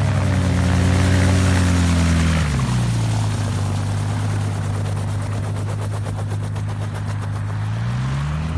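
Gyrocopter's engine and pusher propeller running on the ground. The pitch drops as it is throttled back just after the start and again about two and a half seconds in, holds steady at low throttle, then rises near the end as power comes back on.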